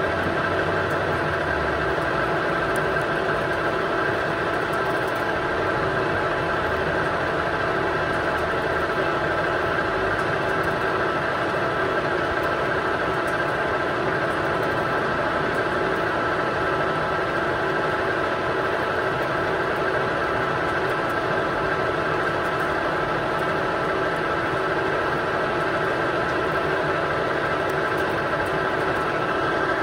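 Ajax gap bed centre lathe running under power with its spindle turning: a steady mechanical running noise with a constant high whine, unchanging throughout.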